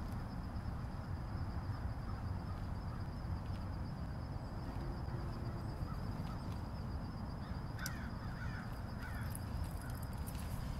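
A bird calling a few short times, about eight seconds in, over a steady low rushing noise.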